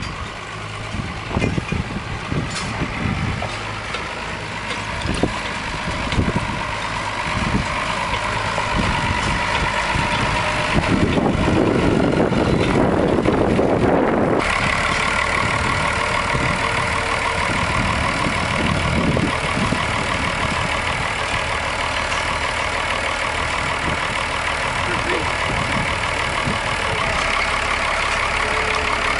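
1994 Case IH 5250 tractor's six-cylinder turbo diesel engine running, with a rougher, noisier stretch around the middle, after which the engine note changes and holds steady.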